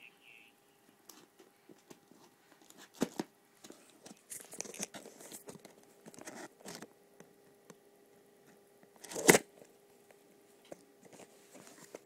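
Camera retail box being opened by hand: tearing and crinkling of packaging with scattered rustles and clicks, a sharp knock about three seconds in and a louder one a little after nine seconds.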